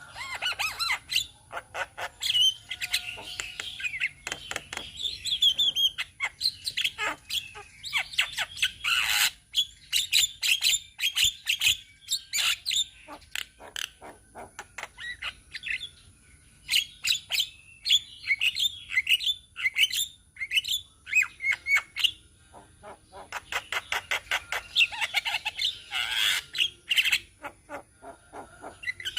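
Several Javan mynas calling together: rapid harsh chattering and clicking mixed with squeaky whistled notes, nearly non-stop, with a brief lull about halfway through.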